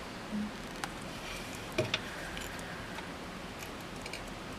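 Small sharp clicks of a tool picking support material off a 3D-printed plastic part, with a loud double click about two seconds in and a few faint ticks near the end.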